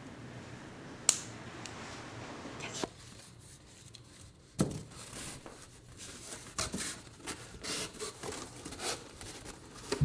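Hand-work sounds in a small room: a sharp click about a second in, another about halfway, then a run of small snips, crackles and crinkles.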